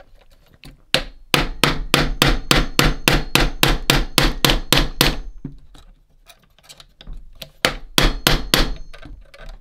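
A quick run of sharp clicks from hand-tool work on the metal hub of a 1971 Nintendo Ultra Scope toy periscope, about four or five a second for roughly four seconds. After a pause, a shorter run of about five clicks comes near the end.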